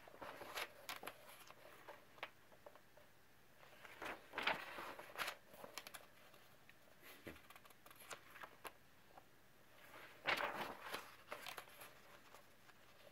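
Paper pages of a softcover coloring book being turned and pressed flat by hand: three brief, soft rustles of paper, at the start, about four seconds in and about ten seconds in.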